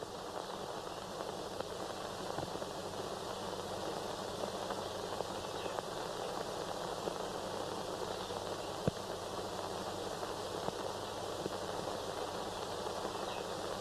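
Steady hiss with faint crackle from an old optical film soundtrack, with one sharp click about nine seconds in.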